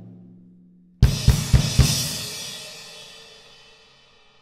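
Solo drum kit: a low tom note rings out and fades. About a second in come four loud accented hits on drums and cymbals in quick succession, then the cymbals ring on and fade away.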